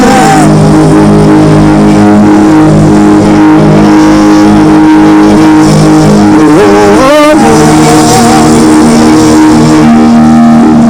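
Worship music: sustained instrumental chords with a singer's wordless vocal. The voice sweeps upward about seven seconds in, then holds a wavering note.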